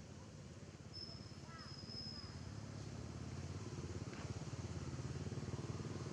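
An engine running with an even pulse, growing steadily louder as it draws nearer. A thin high whistling tone and a few faint chirps come in the first half.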